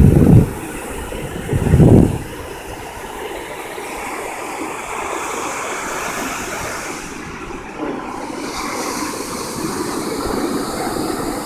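Ocean waves washing steadily onto the beach. Two loud low rumbles of wind buffeting the microphone come at the start and about two seconds in.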